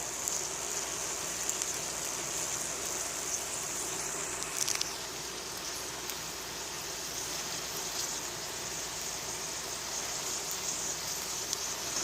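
Egg roll filling of meat and vegetables frying in a pan, a steady sizzle with a few faint clicks.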